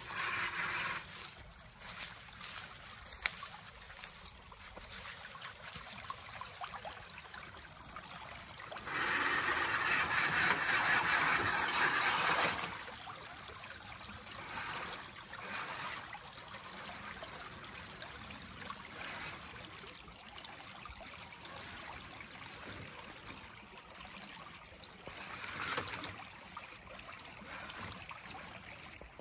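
Shallow rocky creek water running and splashing around a scale RC crawler truck wading through it, with a louder rush of water noise for about three seconds roughly a third of the way in.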